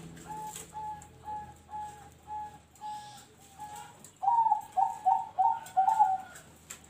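Zebra dove (perkutut) singing its song in the style keepers call noklak nekung: a run of soft, short coos about two a second, then, about four seconds in, a louder and quicker run of about five coos that closes the phrase.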